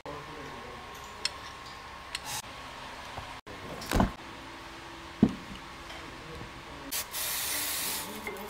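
Workshop sounds of front-brake work on a car: a few light clicks, two loud knocks about halfway through, and a steady hiss lasting about a second near the end.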